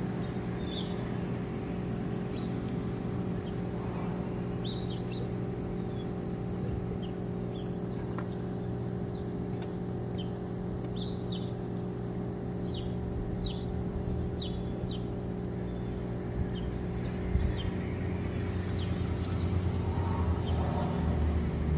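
Insects trilling steadily in one unbroken high tone, with short bird chirps scattered through it and a low steady hum underneath.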